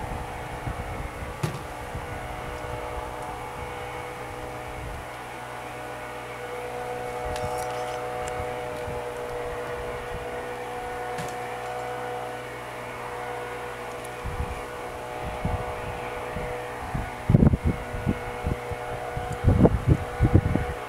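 Honeybees buzzing in a steady hum as they are shaken out of a nuc box into a wooden hive. Low gusts of wind on the microphone and a few knocks come in near the end.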